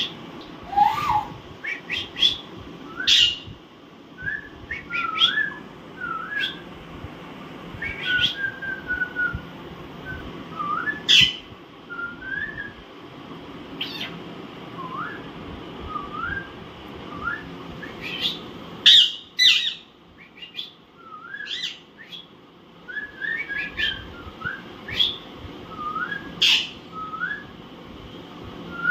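Alexandrine parakeets calling: a string of short rising whistled chirps mixed with harsh screeches, with a loud burst of screeches about two-thirds of the way in.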